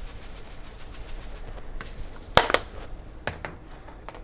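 Faint ticking of a plastic seasoning shaker shaken over a glass bowl, then a few sharp clicks and knocks as the shaker is handled and put down, the loudest a close pair about halfway through.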